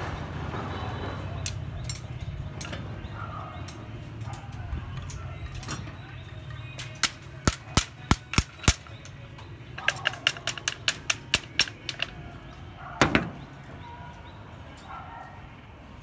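Hammer striking a steel rebar cage: a handful of sharp metallic clanks about seven seconds in, then a quick run of about a dozen taps, and one more blow near the end, over a steady low hum.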